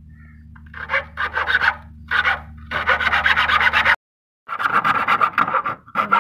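Bare hacksaw blade, held by a cloth-wrapped end, sawing across a wooden stick in quick, short rasping strokes, in several runs with brief pauses. The sound drops out for a moment about four seconds in.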